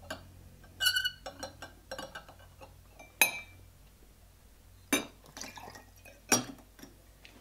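Glass clinking on glass as a brandy snifter of burning sambuca is swirled on a tumbler, poured out and set upside down on the tumbler to smother the flame. Four sharp chinks, the first two ringing briefly, with a short pour of liquid.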